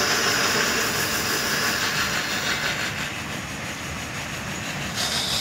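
Steady hiss and rush of water and air through a hose fitting held on a tractor tyre's valve stem as the tyre is filled with water ballast; the hiss turns sharper near the end.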